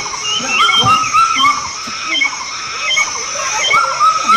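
An animal's repeated short, high calls, some rising and some falling in pitch, over a steady high-pitched drone.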